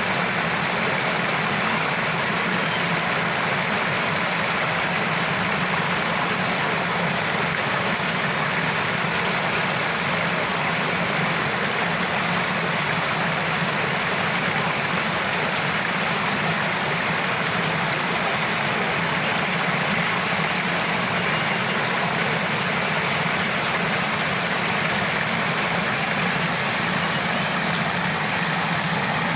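Small waterfall: water falling and gurgling as a steady, unbroken rush.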